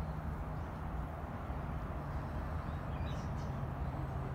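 Steady low outdoor rumble, with a few faint bird chirps about three seconds in.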